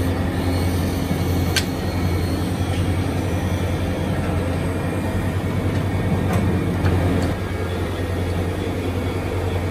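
Workshop lathes and electric motors running steadily with a low hum and dense mechanical rumble, with a few sharp clicks.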